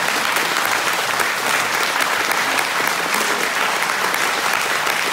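Concert audience applauding: dense, steady clapping.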